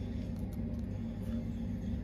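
Steady low rumble, with a few faint clicks of small plywood hinge pieces being handled about half a second in.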